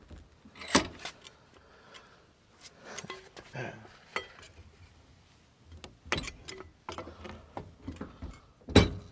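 Scattered metal clanks and clicks from a hitch-mounted bench vise being cranked tight on a CPVC pipe and from a pipe wrench being worked on the pipe. The loudest knock comes near the end.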